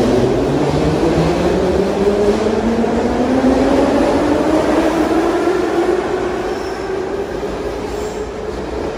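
Metro train pulling out of the station: its traction motors whine steadily upward in pitch as it accelerates, over the rumble of the cars.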